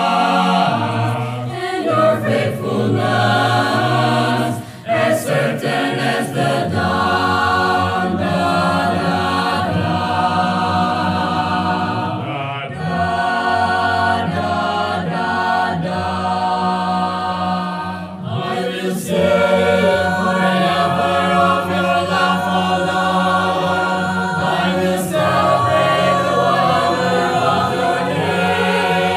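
Mixed choir of men's and women's voices singing a sacred song in English in several-part harmony, with sustained held chords.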